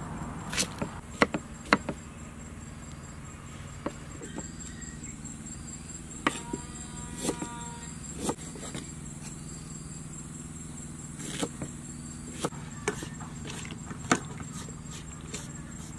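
Outdoor ambience: a steady, high-pitched insect trill over a low hum, with scattered sharp clicks and taps and a brief pitched call about six seconds in.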